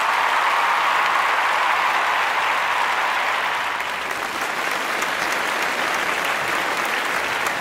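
A crowd applauding: a steady wash of clapping.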